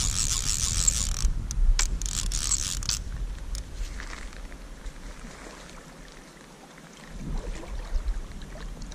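Fly reel's click drag buzzing in rapid clicks as a hooked brown trout fights on the line, stopping about three seconds in. Water splashes near the end as the trout thrashes at the surface.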